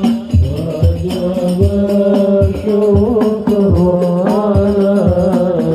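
Hadroh music: a slow sung melody over rebana frame drums struck in a steady beat, about two strokes a second.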